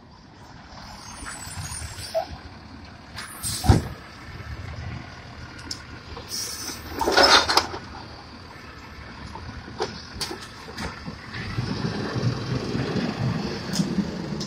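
Automated side-loader recycling truck running as its mechanical arm picks up a wheeled cart and empties it into the hopper: a sharp bang about four seconds in, a loud clattering burst around seven seconds in as the cart is tipped, and the engine running louder near the end.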